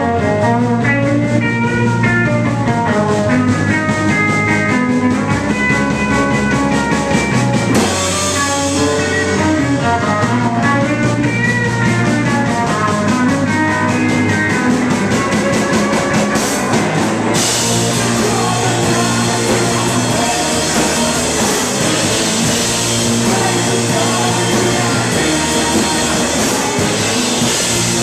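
Rock band playing live: electric guitar lines over electric bass and a drum kit. About two-thirds of the way through, the cymbals come in harder and the playing gets denser.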